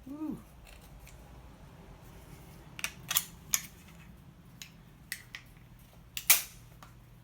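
Metal mounting clamps and hardware of a Stuck Mate tether kit being handled and fitted, giving a handful of sharp clicks and clacks: a quick cluster about three seconds in and the loudest single clack near the end.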